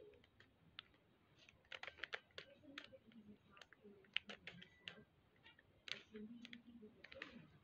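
A plastic 3x3 puzzle cube being turned by hand: faint, irregular clicks and clacks as its layers are twisted.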